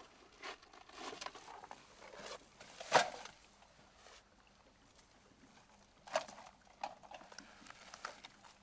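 Plastic sheeting and a canvas tarp rustling as they are handled over a plastic bin, with scattered light knocks, the sharpest about three seconds in and two more around six and seven seconds.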